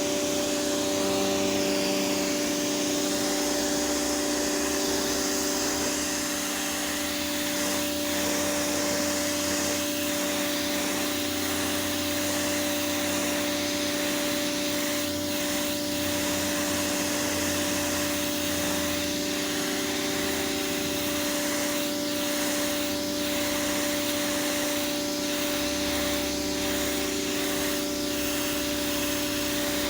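High-pressure washer running steadily: a constant motor hum with a fixed whine and the hiss of the water jet spraying the pavement.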